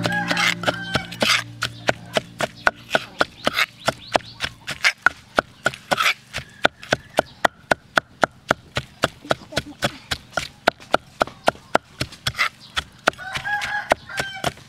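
Wooden pestle pounding shredded grilled chicken in a stone mortar: a steady beat of dull knocks, about three or four a second.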